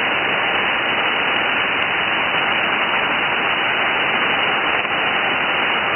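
Steady receiver hiss from a software-defined radio in upper-sideband mode on the 6-metre band, with no signal present. The band noise cuts off sharply just below 3 kHz at the edge of the sideband filter.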